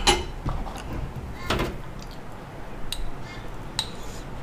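A few light clicks and one short scrape: a glass jar's lid being twisted off and a metal spoon knocking inside the jar as chilli paste is scooped out.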